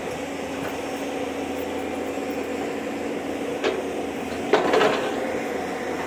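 Hyundai crawler excavator's diesel engine running steadily while it digs. There is a single clank about three and a half seconds in, then a louder clatter of the bucket against soil and stones about a second later.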